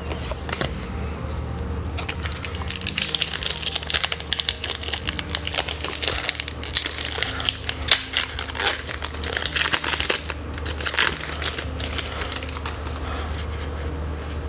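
Foil wrapper of a trading-card booster pack crinkling and crackling as it is torn open by hand, densest through the middle and easing off near the end.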